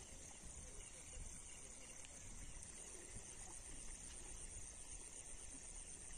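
Faint, steady outdoor background: an even high hiss over a low rumble, with no distinct sound standing out.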